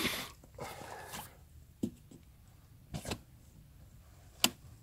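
Rustling and shuffling handling noises as a carp is turned around for its photograph, with a few short knocks and one sharp click near the end.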